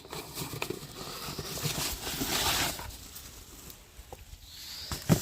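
Rustling and handling noises as a parcel of bulb packets is unpacked and sorted through, with a single sharp knock about five seconds in.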